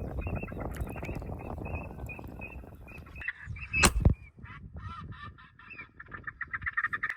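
Ducks calling with repeated honking and quacking calls, and a single shotgun shot about four seconds in that is the loudest sound. Dense rumbling noise runs under the calls for the first three seconds.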